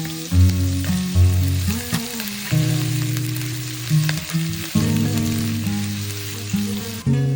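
Food sizzling as it fries in hot oil in a pan, a steady hiss that stops near the end, over acoustic guitar background music.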